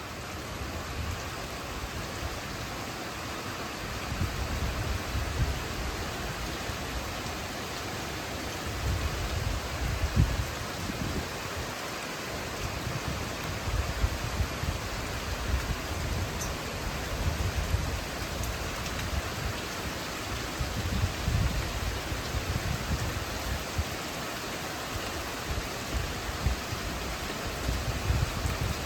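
Steady rain falling, with low thunder rumbles that swell and fade several times.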